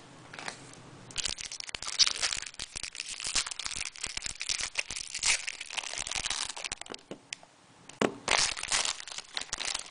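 Foil trading-card pack wrapper crinkling and crackling as it is torn open and handled. The crackle comes in a dense run for several seconds, pauses briefly about seven seconds in, then starts again.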